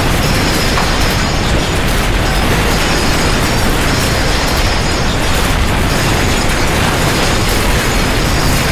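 Earthquake shaking: a loud, steady rumble with dense rattling and crackling.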